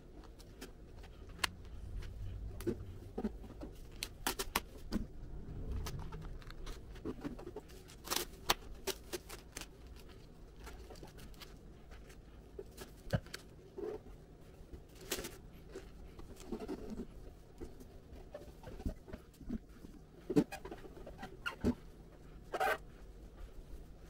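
Irregular handling noise of hand work on a PC case panel and its vinyl skin: scattered sharp clicks and taps with soft rustling, the rustle heavier in the first few seconds.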